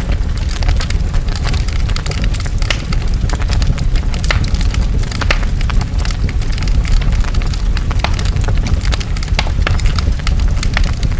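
A large wildfire burning: a steady low roar with many sharp crackles and pops of burning wood throughout.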